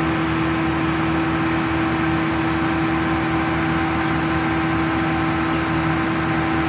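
Air compressor running steadily to inflate rubber ship-launching airbags through a hose, with a constant hum and an even low throb.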